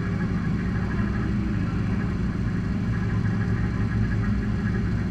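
Race car engine idling steadily, with no revving.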